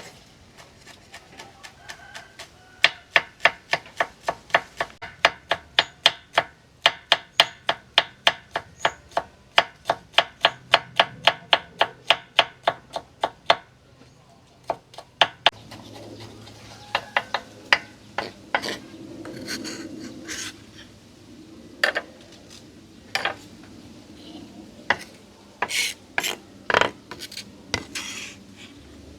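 A knife chopping on a cutting board: a steady run of sharp strokes, about three a second, for some twelve seconds. After that come scattered, irregular knocks and clicks of kitchen utensils.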